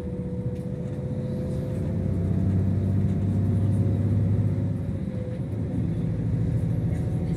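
Iveco Crossway Line bus under way, heard from inside the passenger cabin: engine drone and road rumble with a steady thin whine. The engine grows louder about two seconds in and eases off around the middle.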